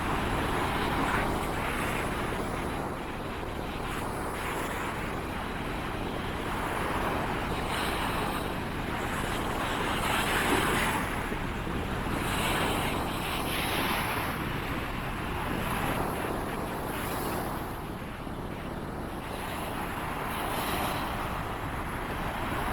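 Surf washing in on a beach, swelling and easing every few seconds, with wind rumbling on the microphone.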